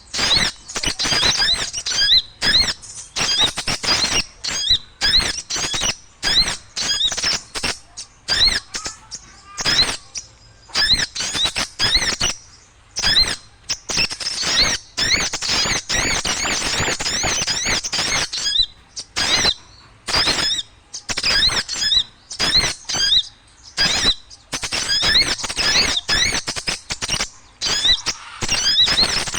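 Small birds chattering noisily: dense runs of rapid, high, squeaky chirps in bursts with short pauses between.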